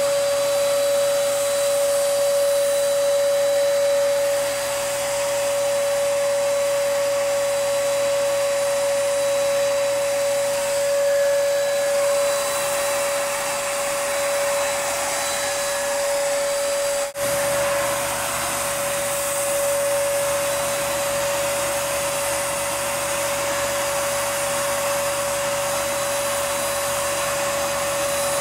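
HVLP paint spray gun running while spraying Plasti Dip: a steady motor whine with a strong single tone over the hiss of the spray, dropping out for an instant about two-thirds of the way through.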